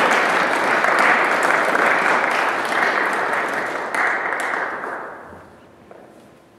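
Audience applauding, the clapping fading away about five seconds in.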